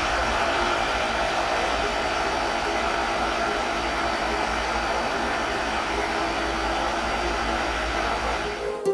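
Cooling fans on the amplifier's transistor heatsinks running: a steady rush of air with a faint whir, which stops abruptly near the end.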